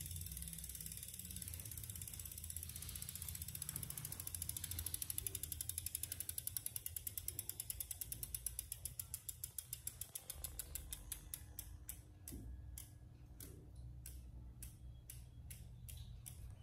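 Freewheel ratchet in the rear hub of an Element Ecosmo Z9 folding bike ticking as the raised rear wheel coasts. It starts as a fast, buzzing run of clicks and slows to a few separate clicks a second as the wheel winds down.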